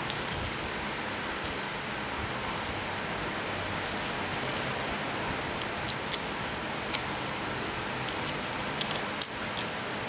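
Light clicks and ticks of small metal and plastic parts being handled and fitted together by hand, over a steady hiss. The sharpest click comes near the end.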